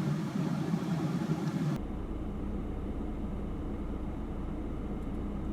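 A car running, heard from inside the cabin as a steady low rumble. A little under two seconds in the sound changes abruptly: the hiss drops away and a deeper, even drone remains.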